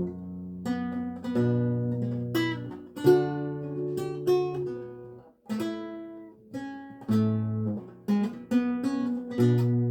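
A 7-course Renaissance lute, tuned to A=415, played solo. It plucks a steady run of single notes and chords that ring and decay over sustained bass courses, with a brief break about five and a half seconds in.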